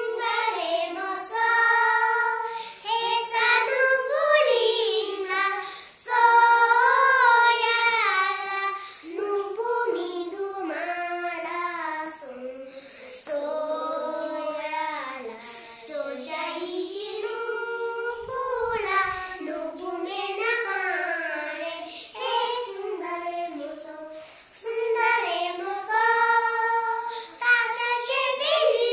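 A small group of young children singing a song together without instruments, their high voices holding and gliding between sustained notes.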